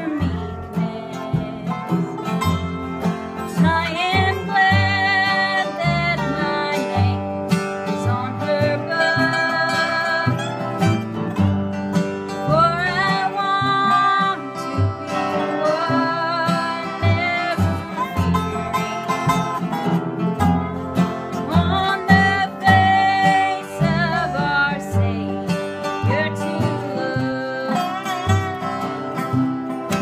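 Acoustic bluegrass played live: flat-top guitar strumming, upright bass plucking the beat, and a dobro (resonator guitar played with a slide), with a woman singing.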